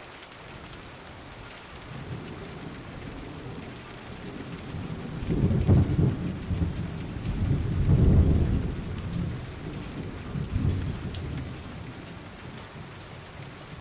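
Storm-swollen river rushing steadily over rocks, with low rumbling swells a little past five seconds and again about eight seconds in, from wind buffeting the microphone.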